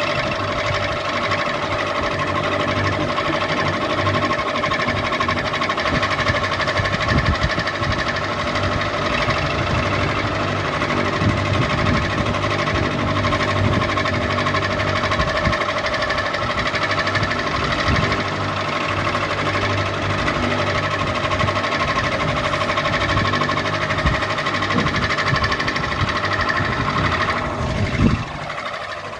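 Electric ceiling fan running: a steady whine made of several tones over an uneven low clatter, briefly louder near the end and then dipping.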